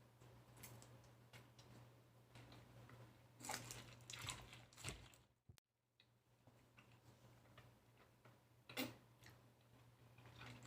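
Faint eating sounds of lychees being peeled and chewed: scattered soft clicks and crackles, bunched about three and a half to five seconds in and again near nine seconds, over a low steady hum.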